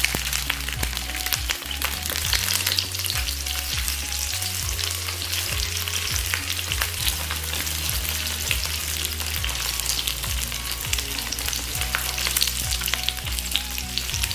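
Frozen dumplings pan-frying in oil: a steady sizzle with dense crackling and spitting.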